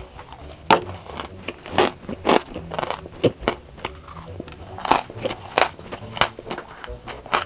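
Crunching bites and chewing of a crisp blue meringue cookie: irregular crackling crunches a few times a second.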